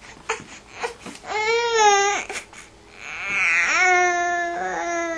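A baby crying: two long, drawn-out wails, the second starting about three seconds in and running longer, which the mother calls fake crying.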